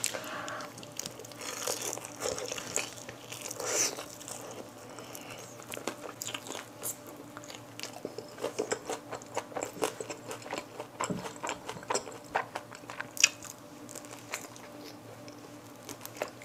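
Close-up biting and chewing of sauce-dipped crispy fried chicken wings: crunchy bites and chewing, with a dense run of crisp crunches in the second half.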